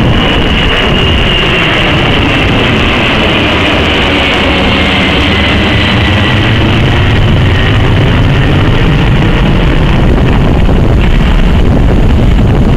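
Boeing 747-400 jet engines passing low overhead: a loud roar with a high whine that falls in pitch as the jumbo jet flies past and away.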